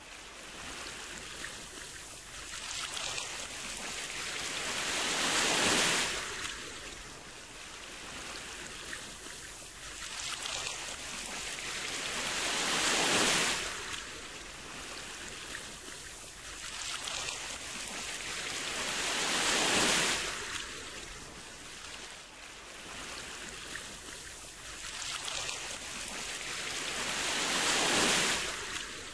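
Ocean surf washing in, each wave swelling to a rushing peak and falling away about every seven seconds.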